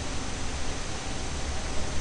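Steady hiss of microphone and room background noise with a low hum underneath. No distinct event stands out.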